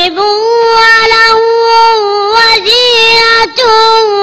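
A young boy reciting the Quran in melodic tajweed style, holding long drawn-out vowels of about two seconds each with ornamented turns in pitch, broken by a few brief pauses.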